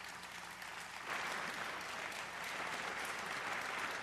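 Audience applauding, growing louder about a second in and then holding steady.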